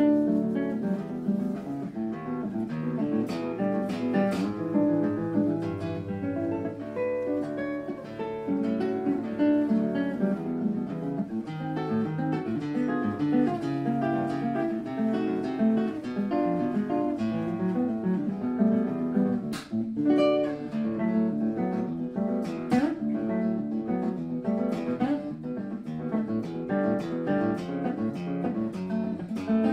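Instrumental music on an acoustic guitar, a steady run of plucked notes with a few sharper strummed accents.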